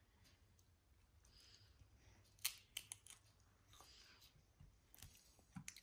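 Faint, sharp clicks and crisp snaps of a young child eating watermelon by hand, breaking the slices apart and biting them. A few come in the middle and a few near the end, with quiet room tone between.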